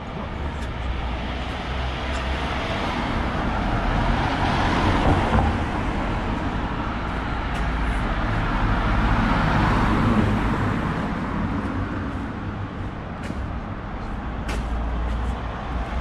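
Road traffic on a town street: passing cars' tyre and engine noise swells twice, about four seconds in and again near ten seconds, over a steady low rumble.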